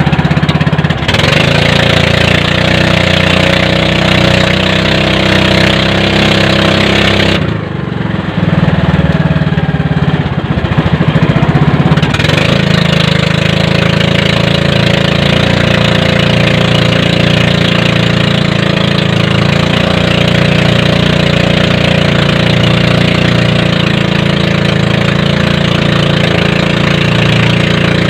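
Boat engine running steadily, dipping briefly about seven seconds in and settling back to an even run by about twelve seconds.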